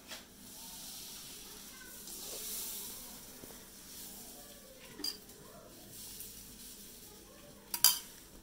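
Steel spoon clinking against a steel bowl of sambar, a sharp clink about five seconds in and a louder one near the end, each with a brief high ring. Soft rustling handling noise in between.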